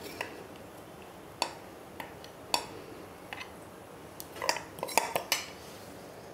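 A metal spoon scrapes semolina batter out of a mixer-grinder jar into a metal cake tin, knocking against the jar and tin. It gives scattered sharp clinks and knocks, with a quick cluster of them near the end.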